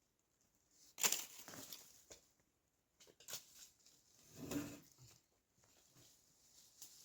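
A few faint, short scuffs and rustles with no engine running. The loudest comes about a second in, and another around four and a half seconds.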